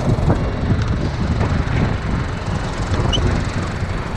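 Low, steady rumble of an idling diesel truck engine.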